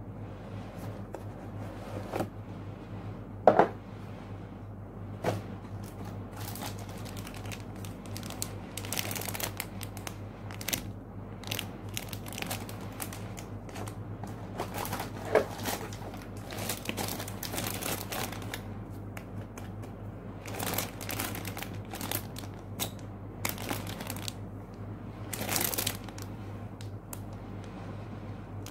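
Handling of a plastic model kit's cardboard box being opened, with knocks and scrapes, then the crinkling of the plastic bags holding the kit's parts runners. A few sharper knocks stand out, the loudest about three and a half seconds in, over a steady low hum.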